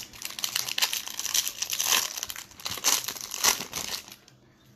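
Foil wrapper of a jumbo pack of Topps baseball cards crinkling as it is torn open and the card stack is pulled out. The crackling stops about four seconds in.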